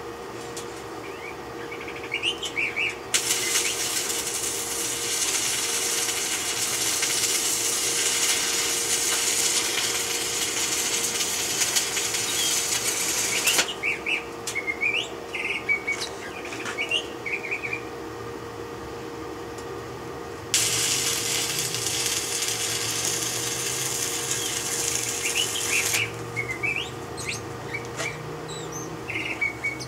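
Electric arc welding in two runs of several seconds each: a steady crackling hiss that starts and cuts off abruptly. Birds chirp in the gaps between the runs, over a steady hum.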